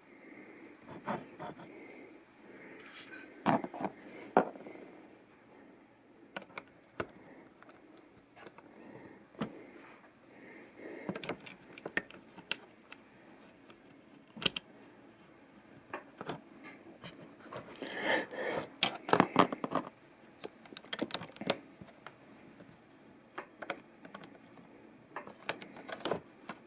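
Plastic LEGO pieces clicking and rattling as they are handled and pressed together, in scattered sharp clicks with a busier flurry about two-thirds of the way through.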